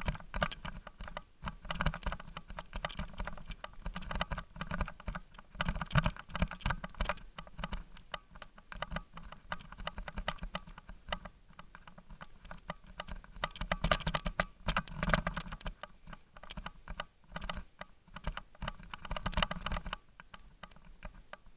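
Mountain bike jolting down a rough dirt trail: a dense, irregular clatter of clicks and rattles from the bike and its mounted camera, louder in several bursts over the bumpier stretches.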